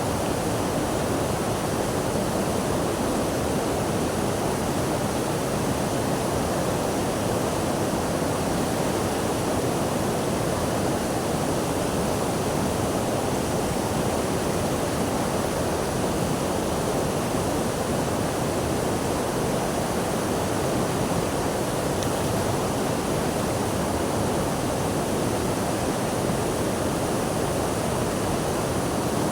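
Running water rushing in a steady, unbroken hiss, the same level throughout.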